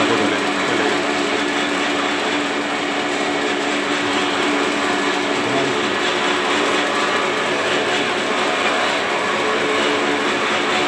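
Laundry soap mixing machine running steadily, its vertical stirring arms churning soap paste in a concrete tank: a constant mechanical noise with a steady hum.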